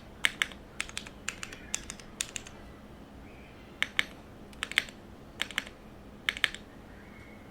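Modifier keys on a gasket-mounted polycarbonate mechanical keyboard with lubed Cherry MX Retooled Brown tactile switches, TX stabilizers and GMK keycaps, pressed one at a time, each giving a click on the way down and another on release. The presses come in a quick run for the first two and a half seconds, then after a short pause as single keys about once a second.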